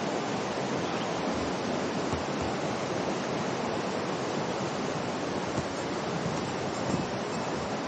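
Steady rushing of a mountain river, the upper Ōi River's east branch, an even unbroken noise of flowing water.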